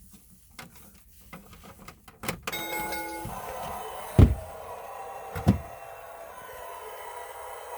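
Clicks from handling a Mattel WWE Tough Talkers toy wrestling ring, then its small speaker plays a brief electronic tone followed by a steady recorded crowd noise. Two loud thumps come at about four and five and a half seconds in.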